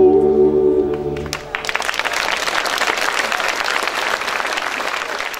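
The final chord of a Dalmatian klapa song, male voices in close harmony, held and dying away about a second in. Audience applause then breaks out and keeps going.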